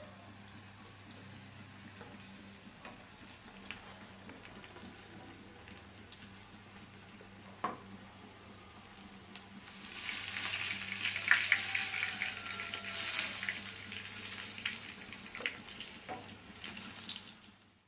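Battered banana-stem chips frying in hot oil: a faint steady hiss, then about ten seconds in a much louder crackling sizzle with many sharp pops, which cuts off suddenly near the end.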